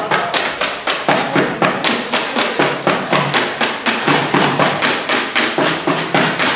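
Everyday objects struck as rhythmic percussion: a steady run of sharp knocks, about four a second.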